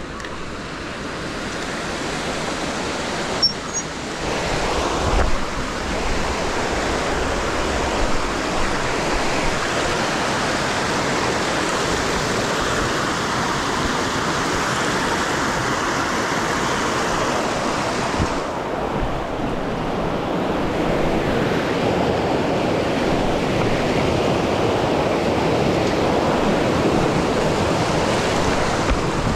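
Shallow mountain stream rushing and splashing over boulders, growing louder over the first couple of seconds as it is approached. Two short knocks about four and five seconds in.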